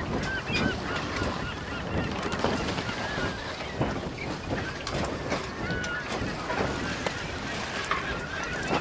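A flock of water birds calling, many short calls overlapping throughout, over the steady low rumble of a boat under way.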